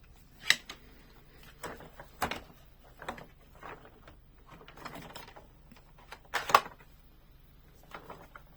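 Hard plastic toy parts clicking and knocking as a ramp is fitted into the Matchbox Action Drivers excavator playset: a scatter of irregular clicks and light handling noise, with the loudest snap about six and a half seconds in.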